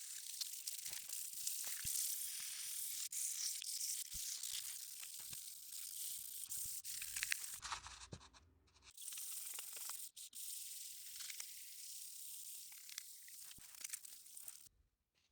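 Steady gritty scraping and rubbing with scattered short clicks, the sound of abrasive work on a surface; it drops out briefly about eight seconds in and again near the end.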